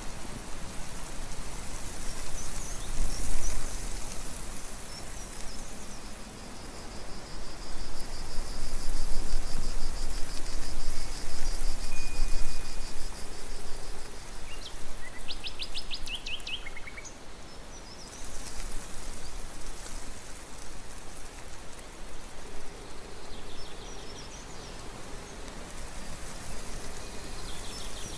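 Steady rain falling, heavier for a few seconds in the middle, with birds chirping and trilling over it, including a quick run of rapid high notes about halfway through.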